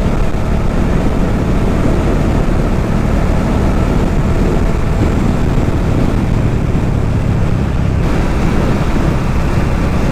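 Motorcycle riding at speed: a steady mix of engine and wind noise with a heavy low rumble that doesn't let up.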